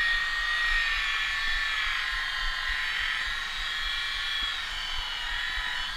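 Handheld electric car polisher running steadily as its pad buffs compound into car paint, its motor whine slowly dropping in pitch.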